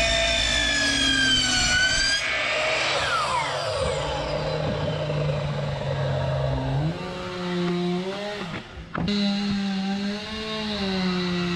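Ridgid miter saw running as its blade cuts through a laminate flooring plank, then the trigger released and the blade spinning down in a long falling whine over about five seconds. After that, a steady droning hum from another engine-like machine carries on.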